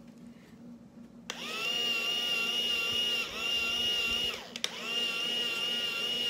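Toy bubble camera's small electric motor whirring with a steady high whine. It switches on with a click about a second in, dips briefly twice past the middle with a click, then runs on.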